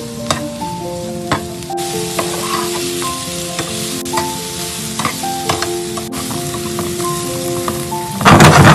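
Sliced mushrooms and onion sizzling in a hot nonstick frying pan while a plastic spatula stirs them, with sharp clicks of the spatula against the pan. A loud, short burst of noise comes near the end.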